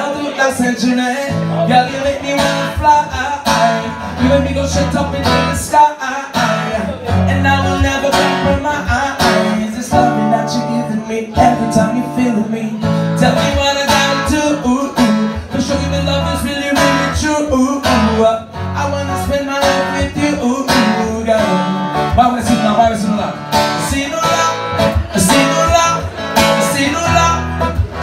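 Acoustic guitar strummed steadily, accompanying a man singing in a live unplugged performance.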